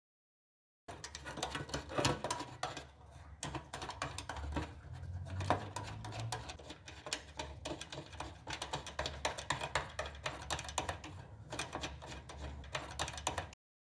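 Rapid, irregular clicking and tapping of small hard objects, starting about a second in and cutting off abruptly just before the end.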